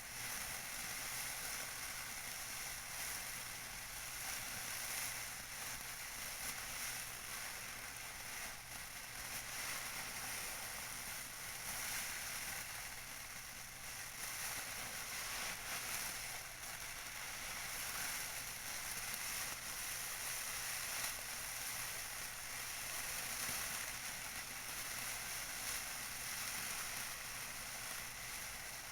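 Tissue paper being crinkled and handled, a continuous crisp crackling rustle that swells and eases without pausing.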